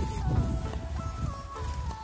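Background music: a simple melody of held notes stepping up and down, over a low rumble.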